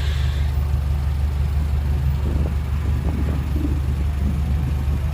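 Heavy diesel engine of earthmoving machinery running steadily, with a deep, even rumble. A few faint clanks come about two to three and a half seconds in.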